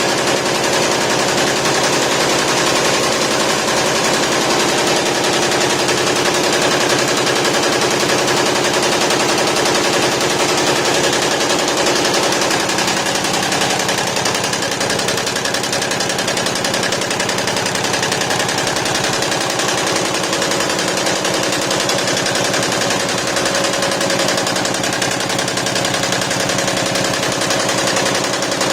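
A 64-needle quilting embroidery machine running, its needles stitching with a rapid, continuous mechanical clatter. A steady hum under it shifts higher in pitch about halfway through.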